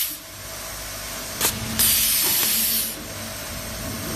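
SWIFT SWT36150H hand-held automatic cable tie gun working: a sharp snap about a second and a half in as it tightens and cuts a nylon tie, then about a second of loud air hiss as the next tie is blown through the feed hose. The end of the previous hiss is heard at the very start, and a faint steady hum from the feeder machine runs underneath.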